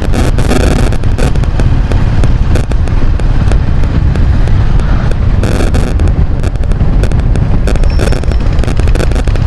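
Heavy wind buffeting on the microphone of a moving vehicle: a loud, rough rumble with many crackling pops all through.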